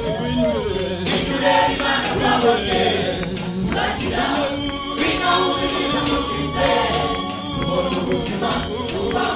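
A gospel choir of mostly women's voices singing together in parts, with musical accompaniment.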